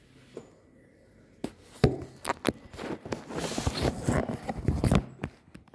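Close handling noise on a kitchen table: a run of clicks and knocks with rubbing and rustling, starting about a second and a half in and thinning out near the end.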